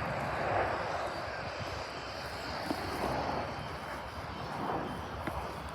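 Jet noise from a Eurofighter Typhoon's twin EJ200 turbofan engines as the jet flies by: a steady rushing with slow swells in level.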